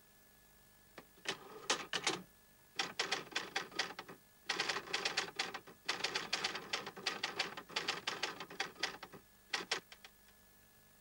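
Typewriter keys striking in quick runs of clicks, with short pauses between the runs as words are typed out; the last run stops about a second before the end.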